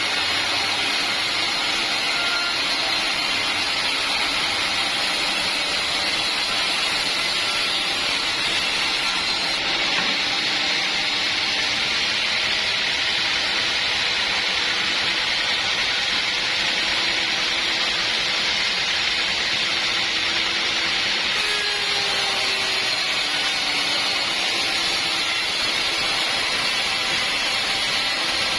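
Sawmill saw running steadily through an acacia log, a continuous even noise with no pauses.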